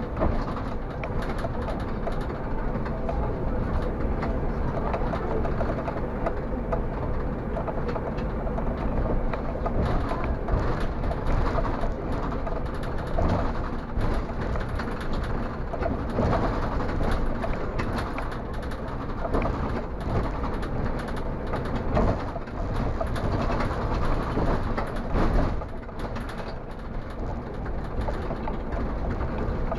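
City bus driving along a street, heard from the driver's cab: a steady rumble of engine and tyres with frequent knocks and rattles.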